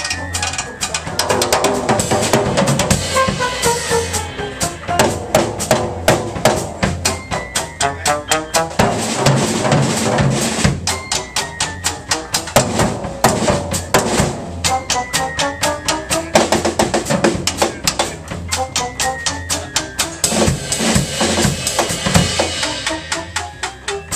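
Live small jazz band playing: trombone lead over upright bass, keyboard and a busy drum kit. The tune ends right at the end, with a sudden drop in sound.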